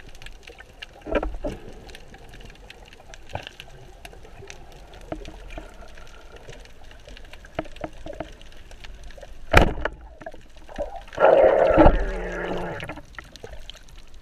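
Water sloshing and gurgling close to the microphone, with scattered small clicks, a sharp knock about ten seconds in and a louder splashing stretch a second later.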